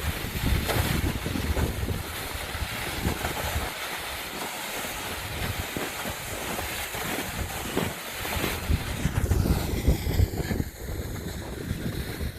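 Wind buffeting the microphone, with gusty low rumbles over a steady rushing noise.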